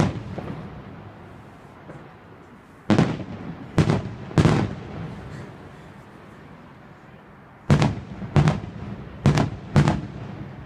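Aerial firework shells bursting in sharp bangs, each dying away in a short rumble. One comes right at the start, three more between about three and four and a half seconds in, then a quicker run of four from about eight to ten seconds.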